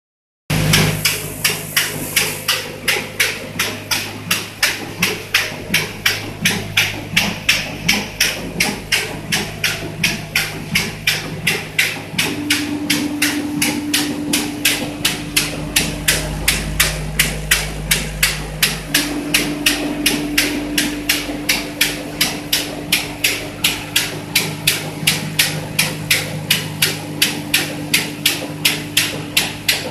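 Capsule blister packing machine running: a fast, even clatter of about three sharp clacks a second over a steady motor hum. A higher steady hum comes in about twelve seconds in, drops out briefly, then returns.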